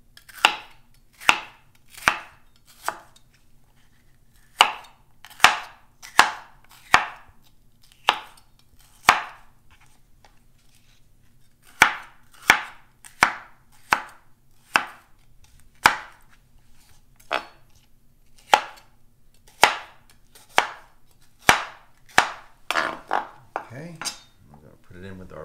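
Chef's knife slicing peeled yellow bell pepper into strips on a wooden cutting board: a series of sharp knocks of the blade on the board, about one a second. There are short pauses about three and ten seconds in, and a quicker run of cuts near the end.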